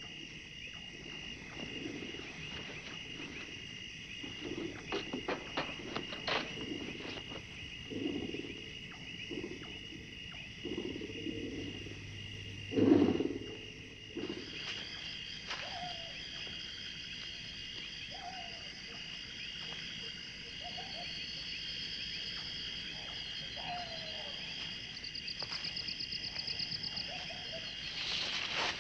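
Night-time bush ambience of crickets and other insects chirping steadily. Soft low rustling sounds come and go, and one louder, short low sound comes about thirteen seconds in. In the second half, short owl hoots repeat every second or two.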